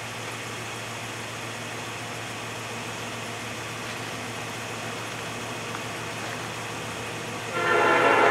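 A train horn starts blowing near the end, a loud chord of several steady tones, after a steady low hum.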